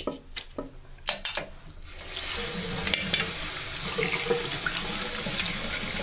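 A few sharp clicks, then a basin mixer tap is turned on about two seconds in and water runs steadily into the washbasin.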